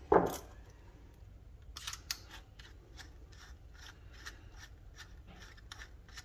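Light metallic clicks and small scrapes, about two or three a second, as the tip and its retaining nut are fitted by hand onto a Milwaukee M12 cordless soldering iron. A brief louder knock comes at the very start.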